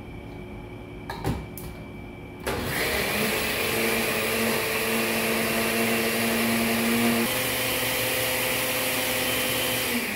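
A couple of knocks, then a countertop blender starts about two and a half seconds in and runs steadily, pureeing fresh corn kernels with a little water. Its motor pitch shifts about seven seconds in, and it switches off and winds down near the end.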